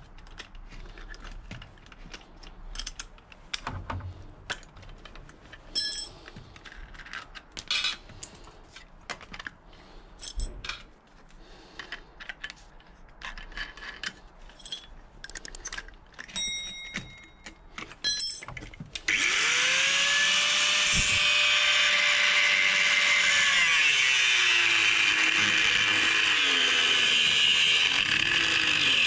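Scattered clicks and metal clinks as an angle grinder is handled and fitted with a fresh cutting disc. About two-thirds of the way in, a high-torque mains angle grinder starts with a rising whine and cuts into the shackle of a Litelok X1 lock, its pitch sagging and wavering as the disc bites into the steel.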